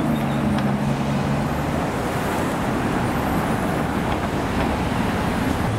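Rolls-Royce Cullinan's V12 engine running as the SUV drives off, a low steady note that fades into the hiss and rumble of surrounding city traffic after about two seconds.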